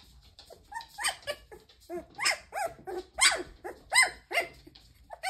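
Young standard poodle puppy yipping: a run of short, high calls that rise and fall in pitch, about two to three a second, starting about a second in. It is a puppy just finding its voice.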